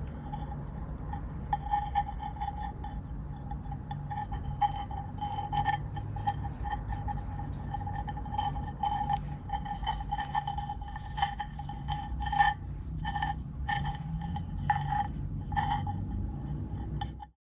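Beadwork kaleidocycle of glass seed beads being turned in the hands, the beads clicking and rubbing against each other in an irregular patter of small clicks, over a steady low hum. All sound stops abruptly near the end.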